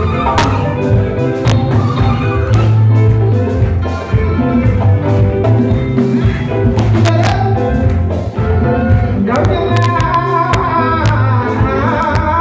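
Live band playing: hand drums and a drum kit strike a steady beat over electric bass and guitar, and a lead voice sings over it in the last few seconds.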